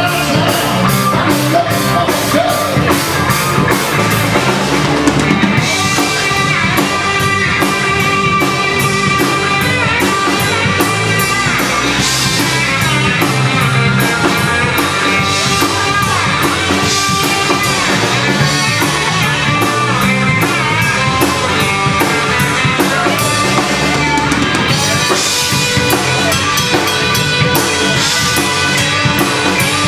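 Live rock band playing: electric guitars, bass guitar and drum kit, with cymbal crashes over a steady beat.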